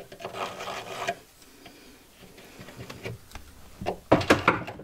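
A screw being driven into the wooden cabinet frame to fix a European hinge's mounting plate, with a grinding rasp for about the first second. A few sharp metallic clicks and knocks near the end are the loudest sounds.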